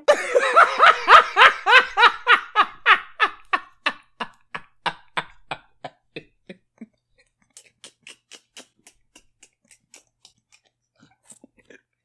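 A man laughing hard in a long run of rhythmic "ha" bursts, about three or four a second, loudest at the start and trailing off after about seven seconds into faint, breathy bursts.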